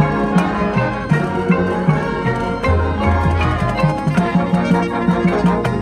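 High school marching band playing its field show: sustained wind chords with front-ensemble mallet percussion such as marimba striking quick notes over them.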